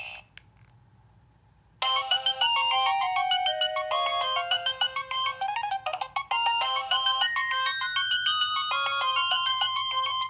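A Nokia 2115i's preloaded ringtone playing from the phone's speaker: a fast electronic melody with several notes sounding at once. It starts about two seconds in, after a short quiet gap with a couple of clicks.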